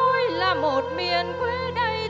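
Instrumental passage of Vietnamese Nghệ Tĩnh folk music: a melody that slides and bends in pitch with quick ornaments, over a steady held drone.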